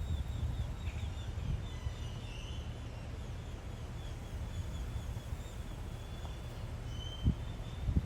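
Faint, rapid high chirps of birds over a steady low rumble, with a short thump about seven seconds in.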